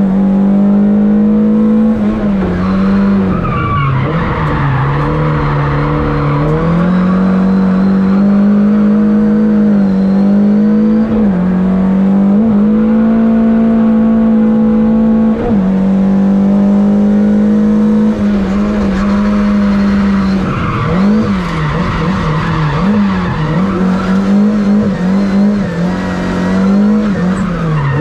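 Lada VFTS rally car's engine at high revs, heard from inside the cabin: the pitch holds steady, then drops and climbs again with each gear change and lift for a bend, coming in quick succession through a run of bends in the second half. Tyres squeal briefly in places.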